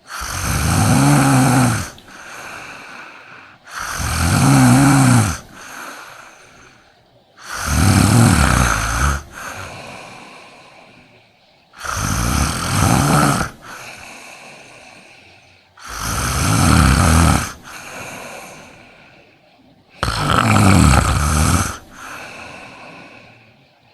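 A man snoring loudly in his sleep: six heavy snores about four seconds apart, each followed by a softer breath.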